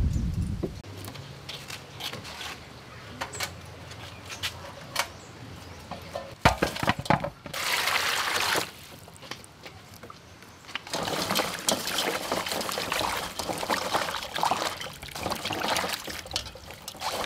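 Water splashing and sloshing in a metal basin as lemongrass and galangal rhizomes are rinsed and rubbed by hand. A sharp knock comes about six seconds in, a short pour follows, and the splashing goes on steadily through the second half.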